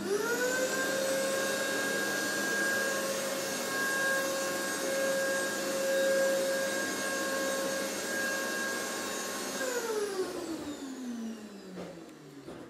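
Electric motor of a kinetic installation, sounding like a vacuum cleaner: it spins up within about half a second, runs at a steady pitch for about ten seconds, then winds down with falling pitch over the last few seconds.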